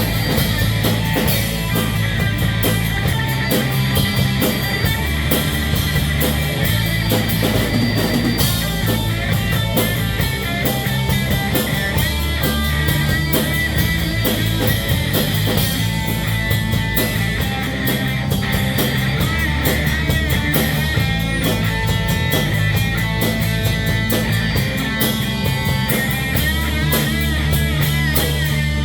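Live rock band playing: distorted electric guitar with drum kit and bass, loud and continuous.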